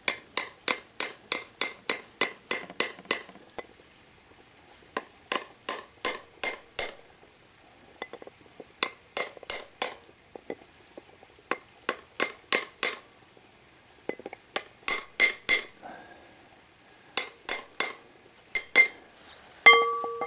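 A hammer tapping an old socket used as a seal driver, seating a new axle seal in the rear wheel hub of a 1977 Ford F250. The sharp metallic taps come in runs of about four a second with short pauses between runs. Near the end comes a single louder clank that rings briefly.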